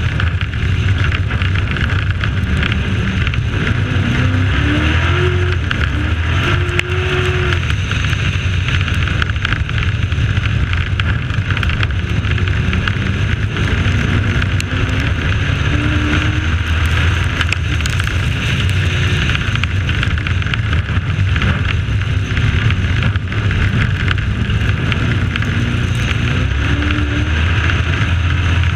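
Dirt-track race truck's engine running hard through laps, heard from an onboard camera over heavy wind and dirt noise. Its pitch climbs several times, about four, fifteen and twenty-five seconds in, as the truck accelerates off the corners.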